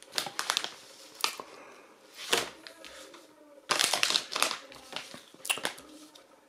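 Plastic packaging crinkling and rustling in irregular bursts as it is handled, with sharp clicks and rattles; the busiest stretch comes about four seconds in.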